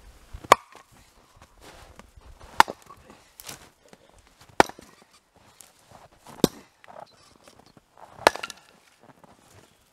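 Axe splitting log rounds: five sharp, loud cracks of the blade striking and splitting the wood, about two seconds apart, with softer knocks in between.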